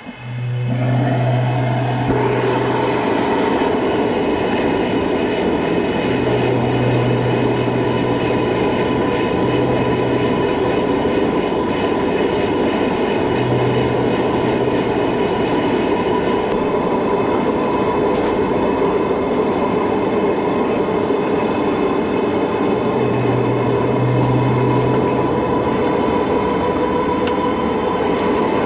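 A blacksmith's forge running: a loud, steady rushing noise with a steady high whine over it, and a low hum that swells in and fades out about four times.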